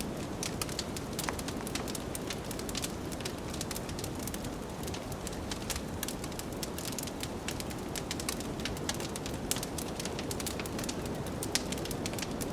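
Wood fire crackling in a fireplace, with many sharp irregular pops and snaps, over a steady low rush of blizzard wind.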